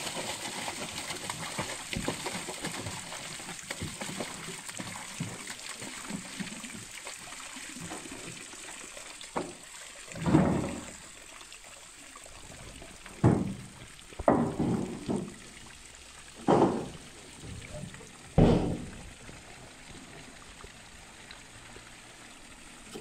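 Water pouring from a fish-stocking tank truck's discharge chute into a lake, a steady splashing that eases off over the first several seconds as the tank empties. It is followed by a handful of short, louder bursts of splashing, each about half a second long.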